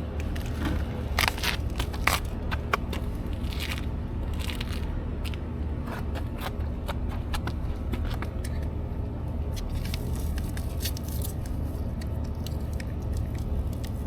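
Hands working spa wiring and plugs: scraping, crackling and sharp clicks, busiest in the first few seconds and sparser after, over a steady low hum.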